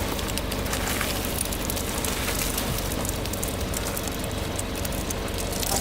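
A car tyre rolling over and crushing brittle objects: a dense crackle of many small snaps and crunches over the low, steady rumble of the car.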